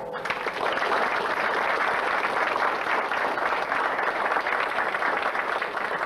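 Audience applauding, starting just as the piano music stops and dying down near the end.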